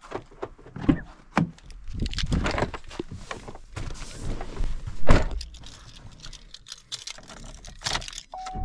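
Handling noises: a jumble of irregular knocks, clicks and rustling, with what sounds like keys jangling. A steady electronic tone starts near the end.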